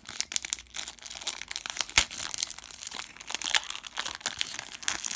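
Packaging crinkling and rustling as it is handled, with many small irregular crackles and one sharp click about two seconds in.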